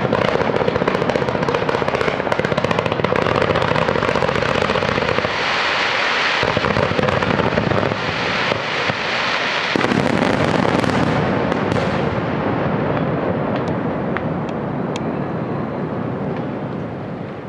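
Set-piece fireworks going off in a dense barrage of bangs and crackling. After about twelve seconds it thins out to a few scattered pops and fades.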